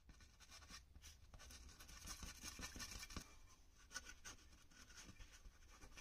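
Faint scratchy scrubbing of a small brush on a circuit board, cleaning the pads of a jumper that has just been desoldered. A tissue wipes across the board near the end.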